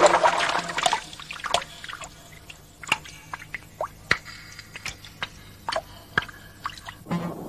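Water dripping: irregular single drops plopping, one or two a second, after music fades out in the first second.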